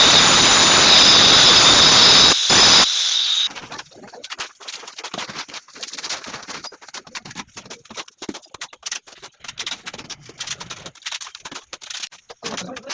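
Angle grinder running on granite: a loud, steady high whine over a harsh grinding hiss, dipping briefly about two and a half seconds in and stopping about three and a half seconds in. After it, scattered light taps and scrapes.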